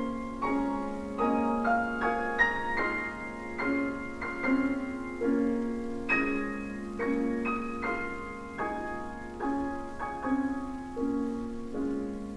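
Solo piano playing classical music: chords struck in the middle register about once or twice a second, each one ringing and fading before the next.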